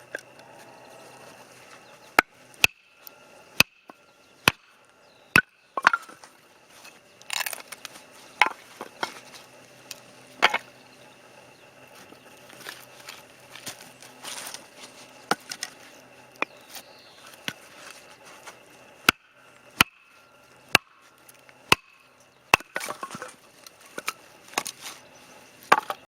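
Firewood being chopped: a string of sharp single strikes, irregularly spaced at roughly one a second, with short pauses.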